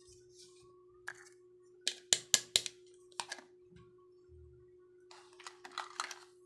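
Small hard plastic toy pieces clicking and clattering as they are handled, in short clusters with a sharp run of knocks about two seconds in and another cluster near the end.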